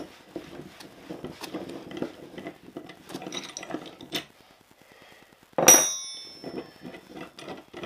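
Small metallic clinks and clicks as a tommy bar turns the screw of a bearing puller on a motorcycle steering stem, then one sharp, loud metallic crack with a high ringing about five and a half seconds in as the stuck bearing breaks free of the stem.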